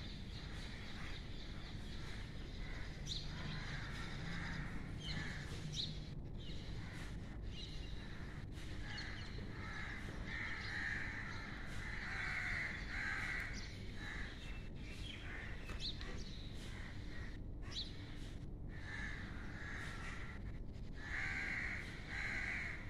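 Crows cawing in short runs of repeated calls, the loudest run about halfway through and another near the end, over a steady low background.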